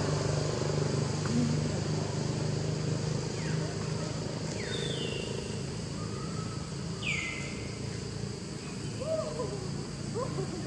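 Outdoor ambience: a motor vehicle's engine hum slowly fading away, with a few short, high whistled calls sliding downward about four and seven seconds in, and fainter wavering calls near the end.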